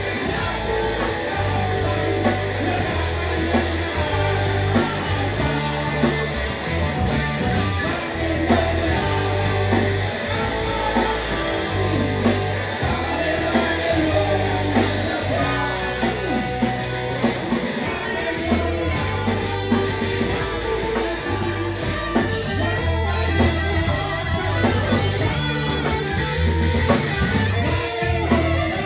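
Live rock band playing: a male singer over electric guitars, bass guitar and drum kit.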